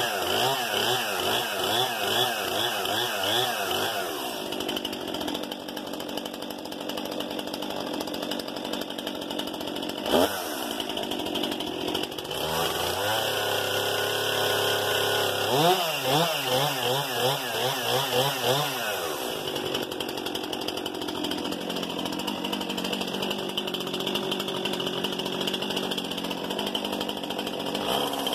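New Stihl MS 261 C-M chainsaw's two-stroke engine being run in without cutting: revved up and down in quick throttle blips at the start and again past halfway, held at high revs for about three seconds in between, and otherwise idling.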